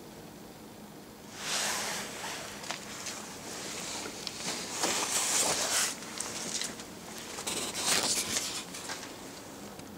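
Rustling, scuffing handling noise in irregular bursts, starting about a second and a half in and loudest around five and eight seconds in; no engine is running.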